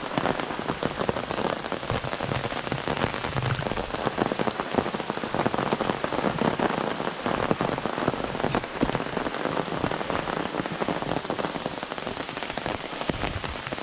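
Rain falling steadily onto an open umbrella held just overhead, a dense, even patter of drops on the canopy.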